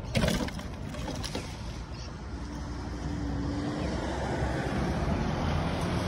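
Road traffic noise building over the last few seconds as a truck approaches along the road, with wind noise on the microphone. A sharp knock comes just after the start.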